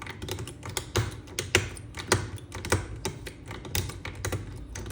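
Metal lockpicking tools clicking and tapping against a CEI pin-in-pin lock while its slider is worked across: a string of irregular sharp clicks, several a second.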